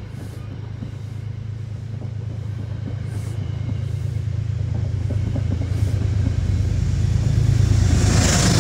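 Metro-North passenger train rolling past, its coaches pushed by a Genesis P32AC-DM locomotive at the rear. A steady low rumble grows louder throughout as the locomotive draws near.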